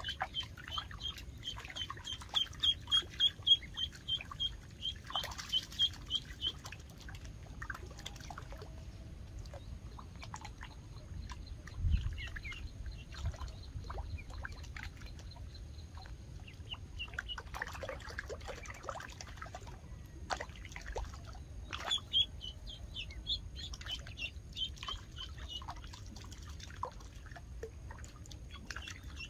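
A duckling on the water, used as live bait for snakehead, peeping in fast runs of short, high calls, about four a second. The peeping fades out after about six seconds and comes back strongly in the last several seconds.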